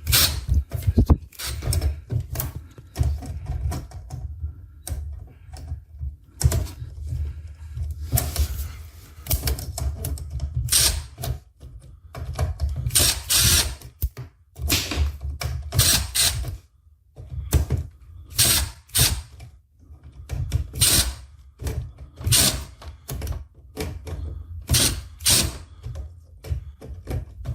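Irregular clicks, knocks and rattles of air conditioner parts being handled and worked on by hand, coming in quick clusters over a low rumble.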